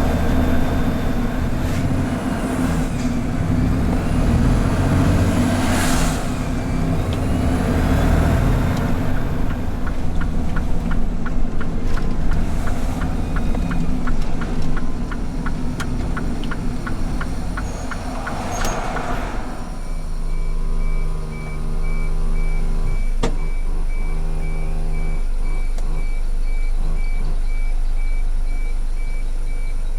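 Mitsubishi Fuso Super Great heavy truck's diesel engine running on the road, a truck the Fuso dealer diagnosed with a failing turbo. A run of regular ticks comes about halfway through and a short air-brake hiss at about nineteen seconds. The engine then settles to an idle under a rapidly repeating high beep.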